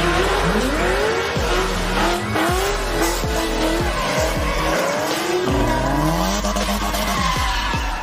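Drift cars' engines revving up and falling back again and again as they slide sideways through a corner, over a steady screech of spinning tyres.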